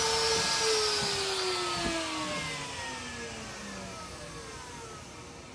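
X-Carve CNC router spindle spinning down after being switched off at the end of a cut: its whine falls steadily in pitch and fades. A light knock about two seconds in.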